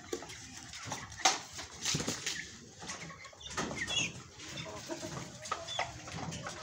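Young chickens and turkey poults giving short peeps and clucks while pecking at a pile of fresh greens, with scattered sharp clicks and rustles of beaks in the leaves. The loudest is a sharp click about a second in.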